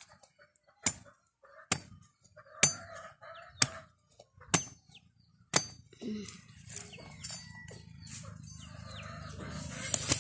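Chickens in a farmyard, with small bird chirps. Sharp clicks come about once a second for the first half, then a low steady hum slowly builds.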